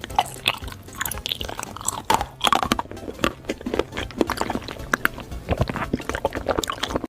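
Crunchy chewing: a quick, irregular run of crisp crunches and bites, with faint music underneath.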